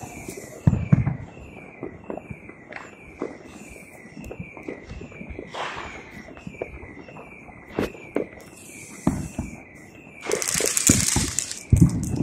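Distant fireworks going off: scattered booms and sharp bangs, with a burst of crackling about ten seconds in. Behind them a short falling tone repeats about twice a second.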